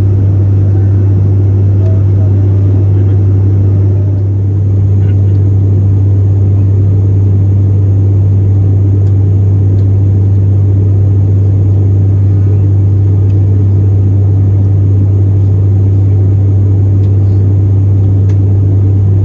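Cabin noise of an ATR 72-500 turboprop in flight, heard at a window seat beside the six-blade propeller: a loud, steady low hum from the propeller over the rush of engine and airflow, dipping slightly for a moment about four seconds in.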